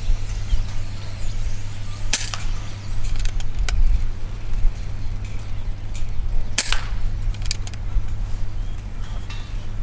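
Two shots from a pre-charged pneumatic air rifle, each sudden and sharp, about four and a half seconds apart, with a few fainter clicks between and after them.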